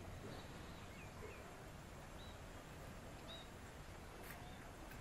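Faint outdoor background with a few short, high chirps from distant birds and a single click about four seconds in.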